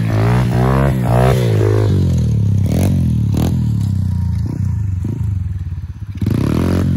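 125 cc pit bike's single-cylinder four-stroke engine revving in quick throttle blips. It settles to a lower, steady running note for a few seconds, then revs up again near the end.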